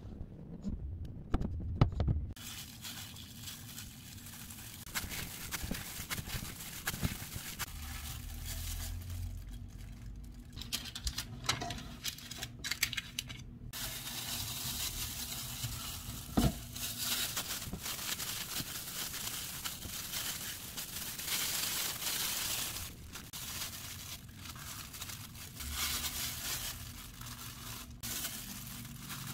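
A rubber spatula clicking and scraping against a glass mixing bowl as dough is worked, then disposable plastic gloves crinkling and rustling as the dough is pulled apart and rolled into balls.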